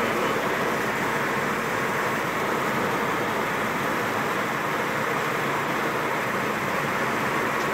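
Steady road and tyre noise of a car travelling at speed, heard from inside the cabin.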